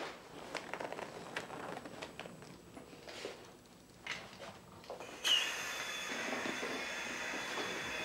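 Rustling of a plastic positive-pressure biosafety suit being pulled on, then about five seconds in a click and a sudden steady hiss of supply air with a thin high whistle, as the coiled air hose is connected and air flows in to inflate the suit.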